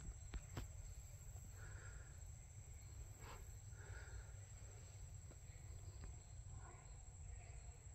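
Faint woodland ambience: a steady high-pitched insect drone, with a few short faint calls and a low rumble from the camera being moved around, plus a couple of light clicks near the start.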